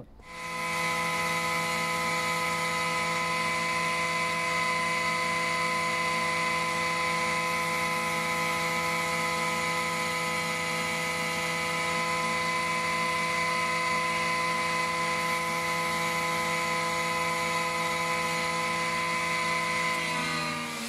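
A stationary woodworking machine's motor and cutter start up and run with a steady, even whine made of several tones. Near the end it is switched off and its pitch begins to fall as it runs down.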